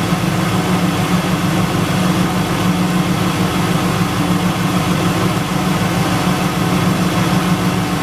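1999 Pontiac Trans Am's LS1 V8 idling steadily with the air conditioning compressor engaged, as the A/C system draws refrigerant in from a can through the low-side hose.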